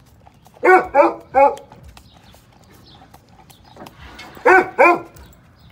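A dog barks three times in quick succession, then twice more about four seconds later, each bark short and dropping in pitch. Between the barks, faint wet clicks of a dog licking from a small cup.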